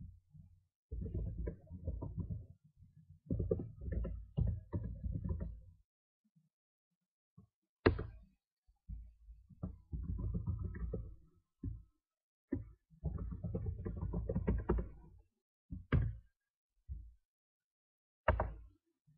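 Bursts of computer keyboard typing, with three single sharp mouse clicks between them, the last near the end.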